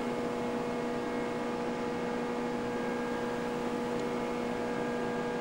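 Steady machinery hum from a ship, two strong low tones with fainter higher ones over an even rushing noise.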